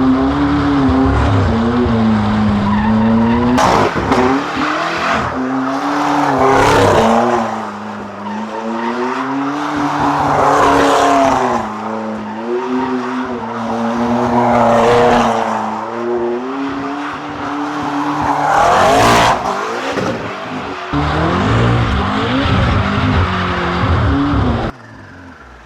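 McLaren MP4-12C's twin-turbo V8 held at high revs, its pitch wavering up and down, while the rear tyres squeal and skid through continuous donuts. The tyre noise swells and fades several times. Near the end the sound drops off suddenly.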